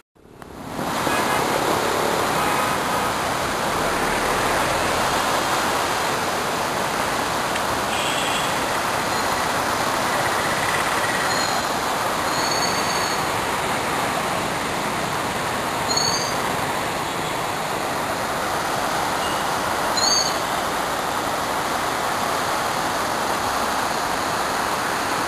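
Swollen, muddy floodwater rushing through a river channel and past a small bridge: a loud, steady rushing noise that rises in over the first second and holds level.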